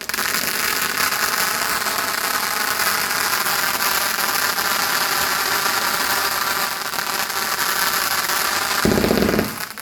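A firework giving off a loud, steady hiss for about nine seconds, with a deeper, louder burst near the end just before it cuts off.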